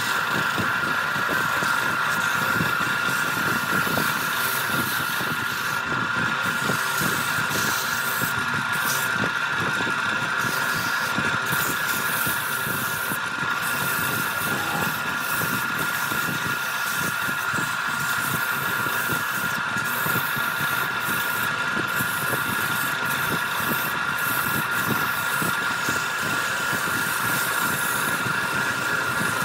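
Wood lathe running steadily, its motor giving a constant high whine over a steady rushing noise.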